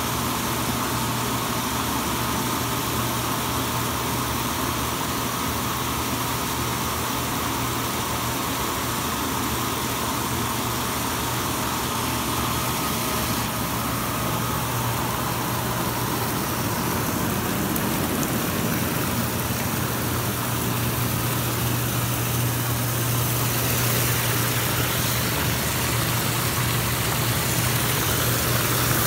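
Artesian Spas 748B South Seas hot tub with its jets running: a steady low hum from the jet pumps under the rushing and churning of aerated water, getting a little louder near the end.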